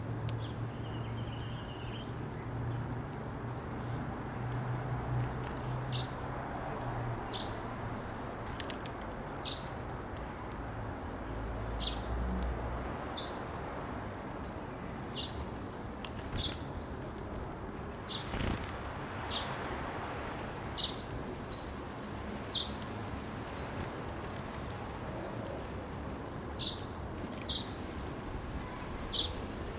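Small backyard birds giving short, sharp chip notes, one at a time at irregular intervals, over a steady low background hum.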